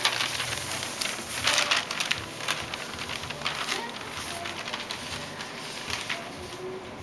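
Newspaper rustling and crinkling as a West Highland White Terrier puppy bites, tugs and tosses it. The rustling is loudest in the first two seconds and dies down after about four.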